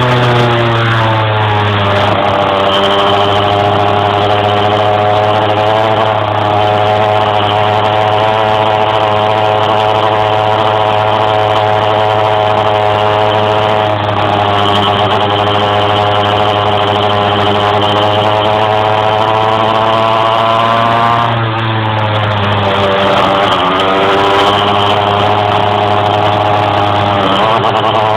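Small two-stroke motorcycle engine running hard at high revs, holding one steady note. The revs dip and climb back just after the start and again for a few seconds about three quarters of the way in. This is typical of an engine that struggles to climb higher in the revs under way.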